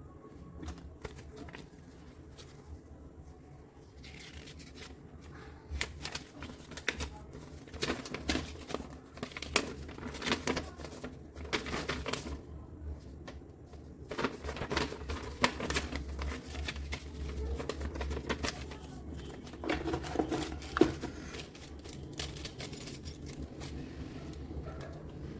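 Irregular rustling, crinkling and clicking of packaging being handled, as a boxed keyboard is unpacked.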